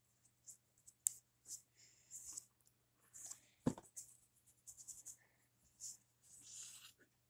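Faint scratchy strokes of a paintbrush rubbing paint across paper, blending orange into red, with a sharp click about a second in and a single knock near the middle.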